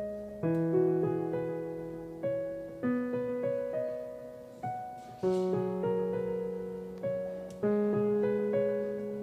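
Background music: a slow, gentle piano melody, each note or chord struck and left to fade.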